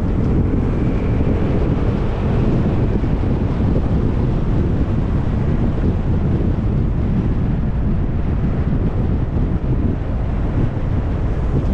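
Steady wind buffeting the microphone, a dense low rumble with no break.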